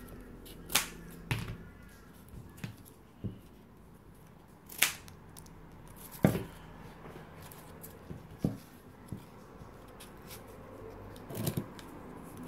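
Scissors cutting corrugated cardboard: about seven separate sharp snips and knocks of handling, spread unevenly, over a low steady hum.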